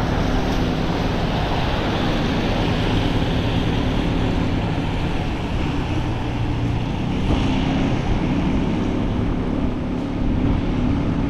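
Wind buffeting the microphone and tyres hissing on a wet road while riding, over a steady low hum.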